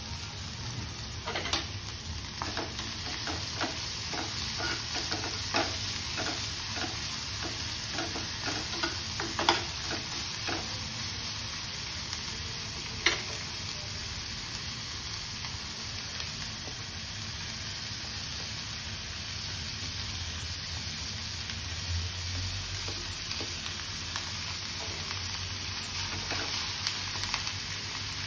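Chopped onion and green capsicum sizzling steadily in hot oil in a kadai. A spatula clicks and scrapes against the pan many times in the first half as the vegetables are stirred.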